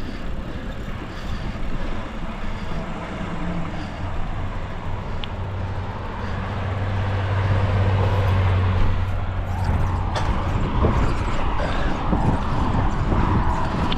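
A motor vehicle passing on the road: its low engine hum builds over a few seconds, is loudest about eight or nine seconds in, then fades. Steady wind noise on the microphone of the moving bicycle runs underneath.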